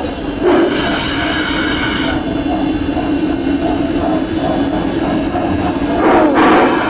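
Large-scale model Shay steam locomotive running past on its track, a steady mechanical running noise. Two louder stretches with several held tones sound over it, one starting about half a second in and lasting over a second, the other near the end.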